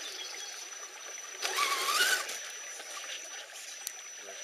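Shallow stream running over stones. About a second and a half in comes a brief, louder rising whine with a splash, as the Axial SCX10 crawler's electric motor drives it through the water.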